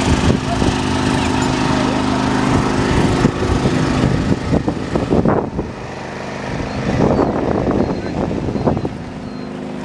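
A small engine running steadily, fading away about halfway through and coming back near the end, with people talking in between.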